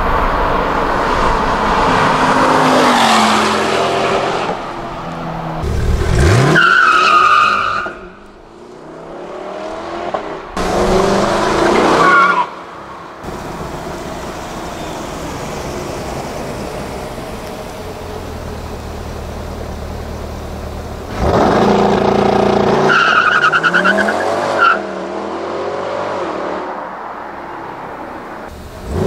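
C8 Corvette convertible's V8 engine in a series of hard runs: loud passes and launches with the engine pitch climbing as it accelerates, separated by quieter stretches of steady engine sound.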